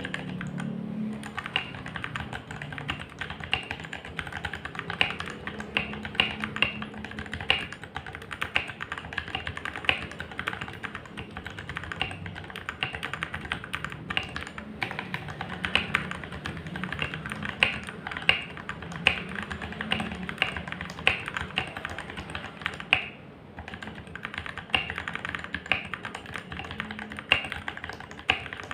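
Typing on a mechanical keyboard with lubed Outemu orange switches: keystrokes clacking in quick, irregular runs. There is a short pause near the end.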